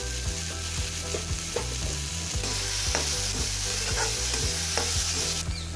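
Chopped tomato and onion sizzling in oil in a kadai while a flat metal spatula stirs them, with a few sharp scrapes of the spatula against the pan. The sizzle falls away just before the end.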